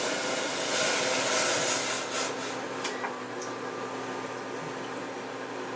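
A loud cooking appliance running with a steady electrical hum and fan noise. A strong hiss fades over the first two seconds, and a few small clicks come around the middle.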